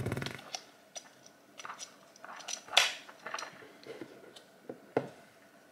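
Small plastic clicks and scrapes as a GoPro Hero 11 Black battery is handled and pushed into the camera's battery compartment, with a louder scrape near three seconds in and a sharp click about five seconds in.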